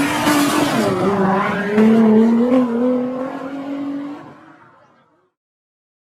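A car engine running hard, a steady pitched drone with tyre and road noise, fading out about four to five seconds in.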